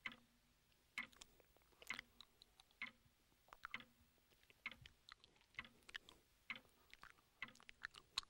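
Close, wet kissing sounds: lips smacking and parting in soft clicks about once a second.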